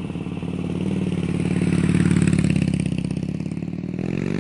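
Motorcycle engine running with a pulsing beat. It swells louder about two seconds in, eases back, then revs up, rising in pitch, near the end.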